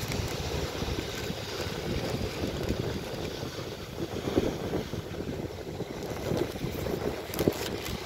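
Wind buffeting the microphone, a steady low rumbling noise, with a few short crackles in the second half.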